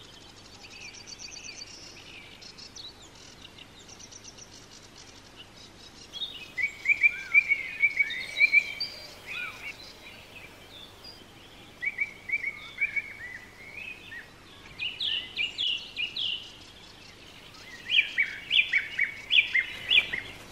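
Wild songbirds singing: a faint, rapid high trill at first, then from about six seconds in louder phrases of quickly repeated chirped and whistled notes, the loudest phrases near the end.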